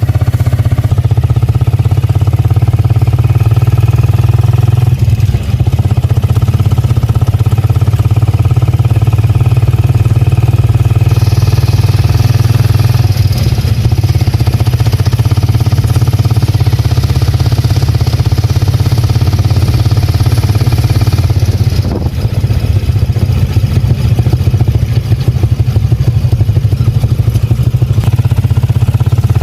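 Motorcycle engine running steadily at a constant speed, with brief changes in the engine note around five seconds and twenty-two seconds in.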